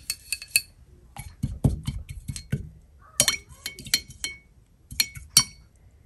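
Irregular light clinks and taps of a tool against small paint dishes as gouache colours are mixed, with a few duller knocks about a second and a half in.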